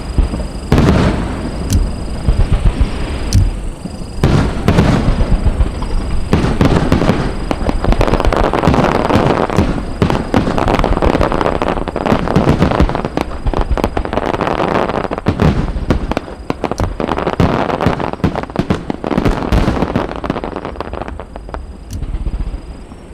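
Aerial fireworks going off in a rapid barrage: dense crackling and booming shell bursts, one after another, easing off in the last couple of seconds.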